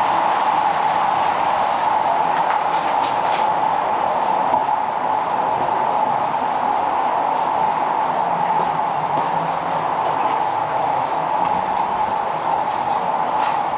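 Steady rushing of the underground stream inside a limestone cave, an unbroken wash of water noise.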